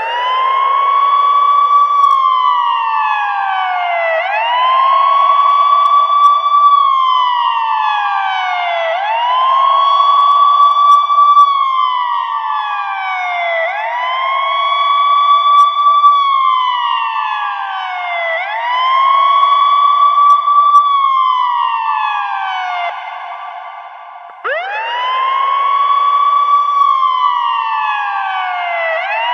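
Ambulance siren wailing in a steady repeating cycle. Each cycle is a quick rise, a high note held about two seconds and a slow fall, repeating every four to five seconds. Just over three quarters of the way through, the cycle cuts off and starts again with a fresh rise.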